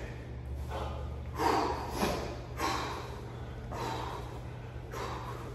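A man breathing hard from exertion: a series of forceful, noisy exhalations and gasps about once a second. A steady low hum runs underneath.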